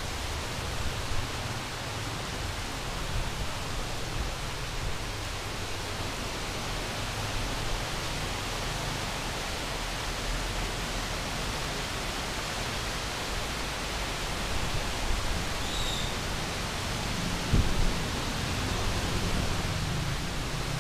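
Heavy rain pouring down onto a flooded street, a steady hiss, with one short knock near the end.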